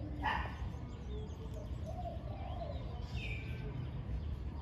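Spotted doves cooing: a run of low, arching coo notes, with a small bird's brief chirp about three seconds in over a steady low background rumble.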